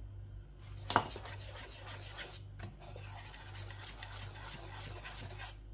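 Wire balloon whisk stirring whole-wheat flour into thick cake batter in a stainless steel bowl: a continuous scratchy rubbing with small ticks of the wires against the bowl, after one sharp tap about a second in.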